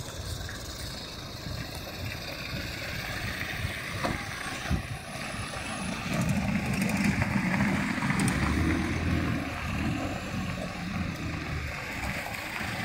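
A motor vehicle engine running, over a steady outdoor noise bed. It grows louder about halfway through and eases off again near the end, as if a vehicle moves close by.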